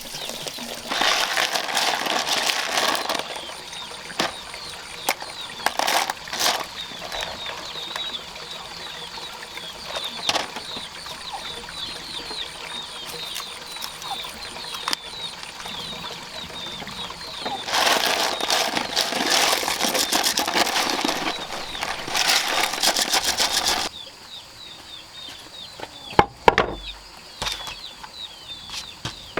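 Small birds chirping over and over in short falling notes, broken by two long stretches of louder rustling noise and a few sharp knocks.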